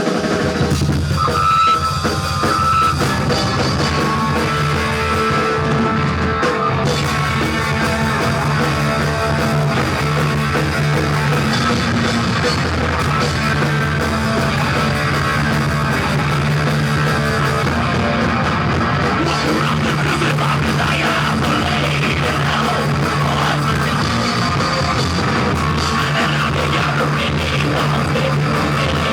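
Rock band playing a song live, steady and loud throughout, in a rough, poor-quality recording.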